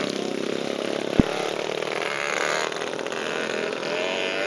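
Engines of small children's motocross bikes buzzing and revving up and down as the riders go round a dirt track corner. There is a single sharp thump about a second in.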